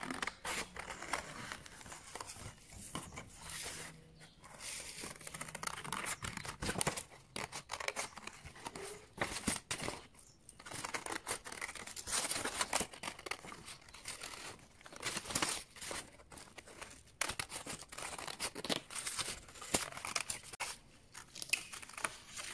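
Scissors cutting paper, a run of short snips one after another as the sheet is turned between cuts, with some rustling of the paper.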